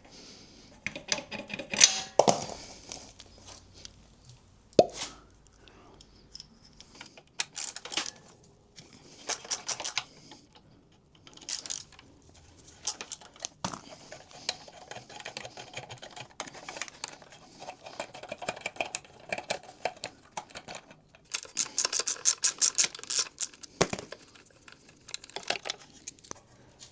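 Scattered clicks, taps and short metallic rattles of hand tools, screws and plastic body panels being handled while a motorcycle's fairing is taken apart, with brief clusters of quick rattling at a few points.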